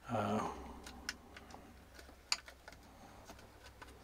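Scattered light clicks and taps of hands handling small metal parts and wiring under a truck dash, about one or two a second, after a brief murmur of voice at the start.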